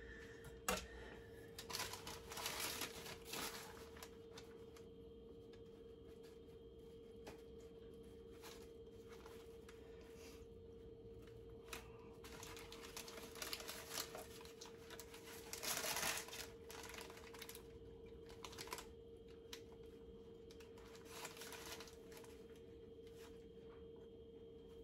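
Parchment paper crinkling and a knife scraping as dough that has stuck to the paper is worked free on a baking sheet, in short irregular bursts with a sharp click near the start. A faint steady hum runs underneath.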